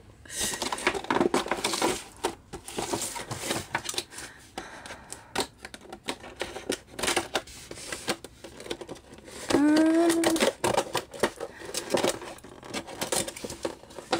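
Scissors snipping through the clear plastic window of a doll's cardboard box, with the plastic crinkling and clicking as it is cut and handled. A short pitched sound breaks in about two-thirds of the way through.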